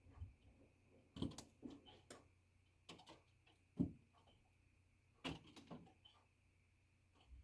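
Near silence broken by a scattering of faint, sharp clicks and ticks at irregular intervals, the loudest a little under four seconds in, over a faint steady high-pitched hum.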